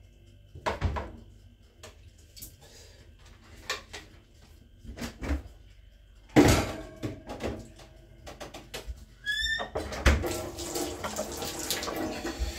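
Kitchen clatter as things are set down by a stainless-steel sink: scattered knocks, the loudest about halfway through, and a short rising squeak. Near the end, water runs from a tap.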